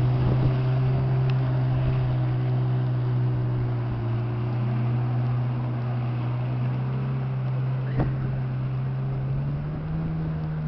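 Jet ski engine running steadily at speed, its pitch rising near the end as the throttle comes up, the sound gradually fading. A short knock about eight seconds in.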